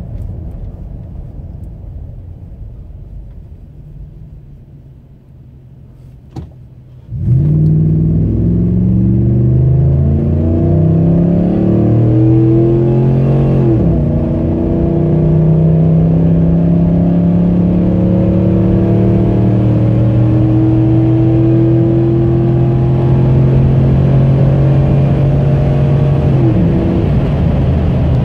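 Ram 1500's 5.7 Hemi V8, fitted with a cold air intake, heard from inside the cab: a quiet low run at light throttle, then about seven seconds in a sudden loud jump to full-throttle acceleration with the engine rising in pitch. The pitch drops sharply at one upshift, then the engine holds a steady high-rev pull that eases off near the end.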